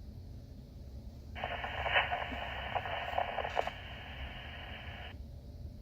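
Fire department two-way radio channel keyed open for about four seconds, starting about a second and a half in. It carries narrow-band hiss and muffled crackle with no clear words, then cuts off.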